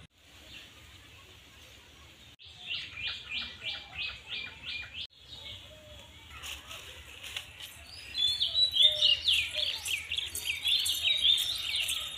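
Birds chirping: a run of about eight quick, evenly spaced high notes, then a louder, busier jumble of chirps over the last few seconds.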